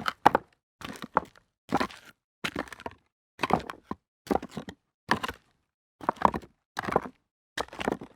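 Footsteps walking over loose rocks, each step a short grinding crunch of stone on stone. About ten steps at an even walking pace.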